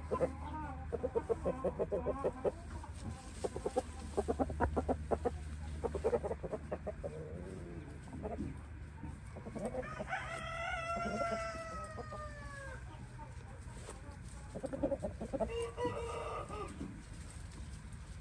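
Shamo gamefowl: a run of rapid clucking over the first seven seconds or so, then a rooster crows once about ten seconds in, a long call of nearly three seconds that sags in pitch at the end. A shorter call follows around fifteen seconds in.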